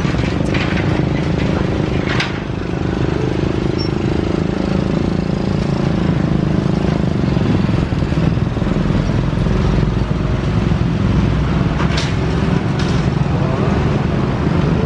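Street traffic at a railway level crossing: motorcycle engines running as motorbikes and a motorcycle-powered becak cross the tracks, over a steady low rumble, with a few short sharp clicks.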